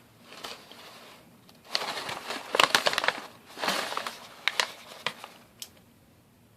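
Someone crunching and chewing puffed pork rinds (chicharrones) in two crackly stretches of crunches, the first from about two seconds in and the second near the middle, trailing off toward the end.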